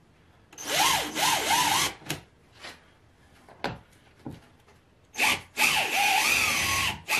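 Cordless drill running a spring-loaded self-centering bit into the laminate-covered sled base through the holes of the metal runner bar, drilling two holes in two separate runs, each a second or two long, with the motor pitch rising and falling under the trigger. A few light knocks come between the two holes.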